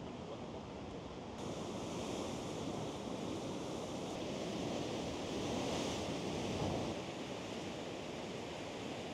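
Ocean surf breaking and washing over rocks, a steady rushing that swells loudest a little past the middle and then eases.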